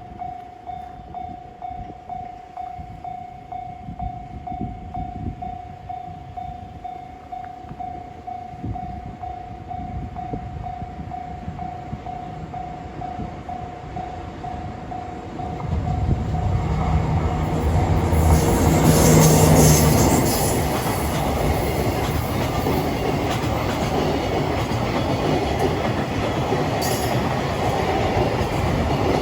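A level crossing warning bell ringing steadily, then about sixteen seconds in a JR Freight DD200 diesel-electric locomotive hauling a freight train comes past. Its engine is loudest a few seconds after it arrives, followed by the steady run of the wagons' wheels over the rails.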